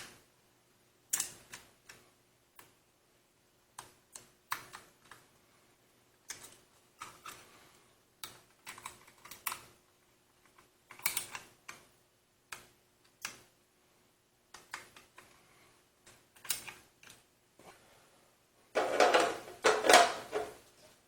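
Irregular small clicks and taps of a hand screwdriver driving screws into an SSD in a metal drive tray. A louder clatter lasting about two seconds comes near the end.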